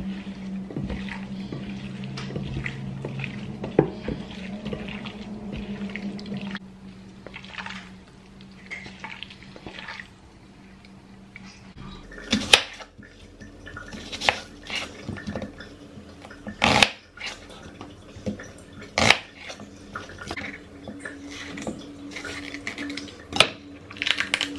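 Gloved hands squishing marinated chicken pieces in a glass bowl, a wet mixing sound. From about halfway, a kitchen knife cutting onion and green bell pepper on a wooden cutting board, irregular knocks of the blade on the board. A steady low hum runs underneath.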